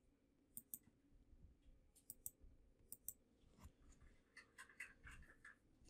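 Faint computer mouse clicks: a few sharp clicks in pairs and quick clusters, then a run of softer, rapid ticks.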